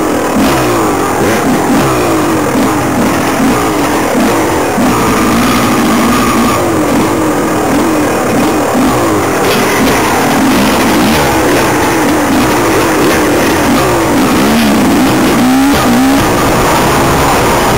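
Enduro dirt bike engine close by, revving up and down constantly as the throttle is worked on a rough trail, its pitch rising and falling every second or so.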